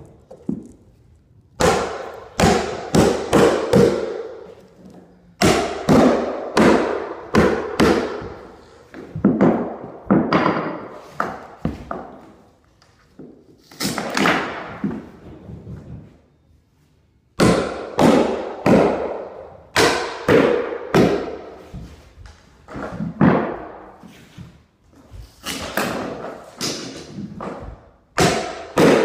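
Hammer driving the nails of wooden carpet tack strip into the subfloor: runs of quick, sharp blows, with pauses of a second or two between runs.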